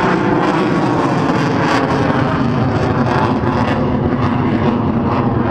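Loud, steady jet engine noise from a Eurofighter Typhoon's two EJ200 turbofans at display power as the fighter flies its routine overhead.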